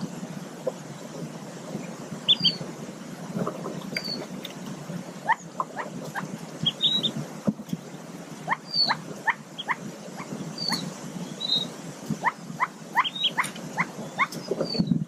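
Mallard ducklings peeping: many short, rising peeps in quick runs of a few at a time, with a few higher chirps between them. Under the calls runs a soft rustling of nest material as the hen shifts on the nest.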